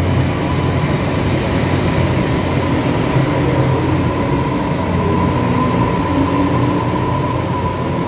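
Taiwan Railways EMU500-series electric commuter train (EMU583+EMU585) pulling out of an underground station platform: the rumble of the cars rolling past under a steady motor whine.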